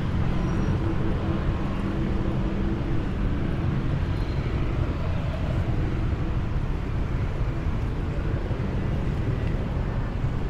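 Steady rumble of street traffic, with a vehicle engine's hum standing out in the first few seconds.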